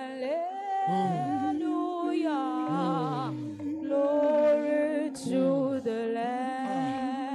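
Wordless worship singing: long wavering notes hummed and held over a steady low drone, with sliding lower notes now and then.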